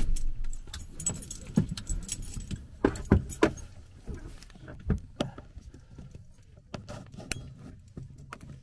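Light jingling with scattered clicks and knocks inside a parked car's cabin, just after the engine's rumble stops at the start.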